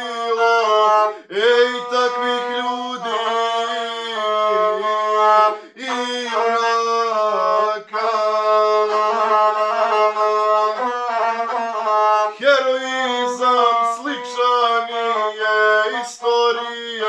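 A gusle, the one-string bowed folk fiddle, played with a horsehair bow. It holds mostly steady pitches with quick ornamental turns, accompanying a male voice in South Slavic epic singing.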